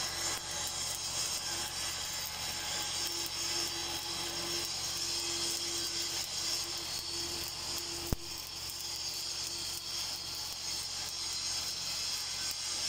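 Stick (SMAW) welding arc with a 7018 electrode on a steel pipe seam, a steady crackling sizzle, with a faint hum underneath and one sharp click about eight seconds in.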